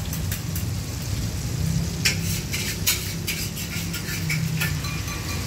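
Battered pork pieces deep-frying in a wok of hot oil: the oil sizzling with irregular crackles and pops over a steady low hum.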